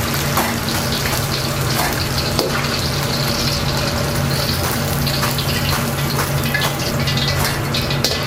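Starch-battered chicken pieces deep-frying in hot oil, given a first fry to about 70% done: a steady sizzle and bubbling with scattered crackles, over a steady low hum.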